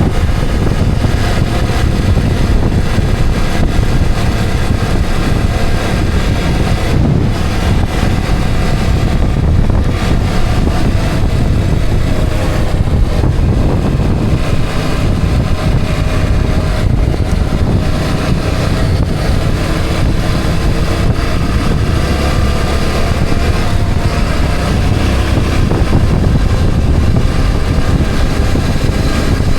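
Steady road noise of a moving vehicle: heavy wind rushing over the microphone with the engine's steady hum underneath.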